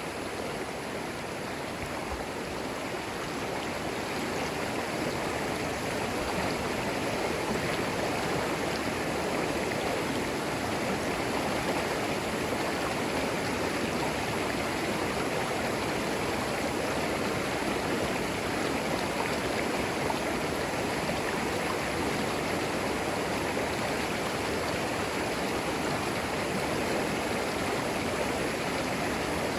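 Shallow forest creek flowing over and between stones: a steady, even rush of running water.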